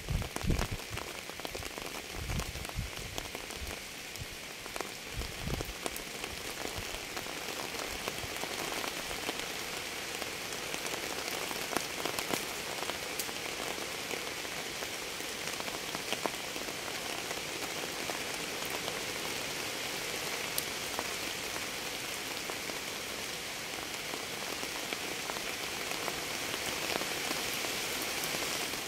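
Steady rain falling, a dense hiss with many separate drops ticking on a surface. A few low thuds come in the first several seconds.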